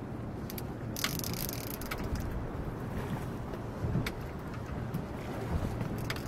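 Wind rumbling on the microphone aboard a small boat at sea, with a few sharp clicks and a short hiss about a second in.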